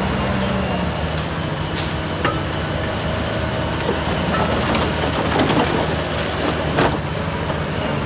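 Heavy earthmoving machine's diesel engine running steadily. A short hiss comes about two seconds in, and scattered knocks and clanks follow later on.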